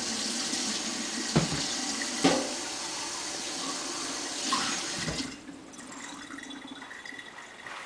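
Water running steadily, then shut off about five seconds in, with two short knocks before it stops.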